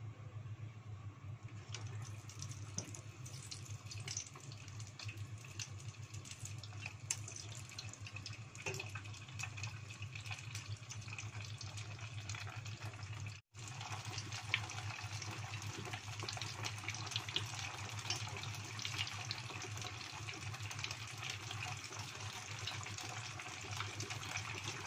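Hot oil in a small pot sizzling and crackling as skewered sempol tahu deep-fry, over a steady low hum. The crackling grows denser after a brief cut about halfway through.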